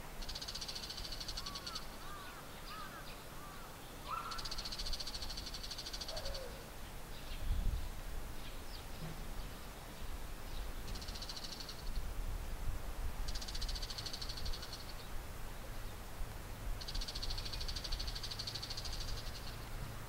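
Male bull-headed shrikes calling back and forth: five bouts of rapid, high-pitched chattering calls, each one to three seconds long with pauses between.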